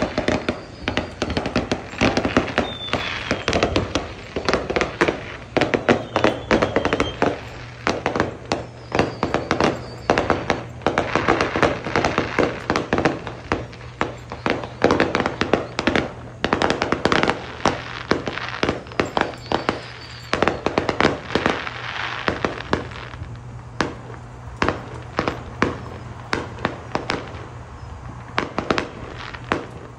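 Aerial fireworks shells bursting in rapid, near-continuous bangs and crackles, with a few faint whistling glides.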